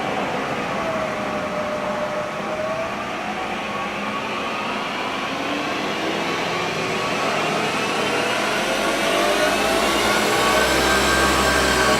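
Acer Ultima 3VK vertical knee mill's spindle motor and head running, a steady whine whose pitch dips over the first few seconds and then climbs again. It grows slightly louder, with a low hum joining in the second half.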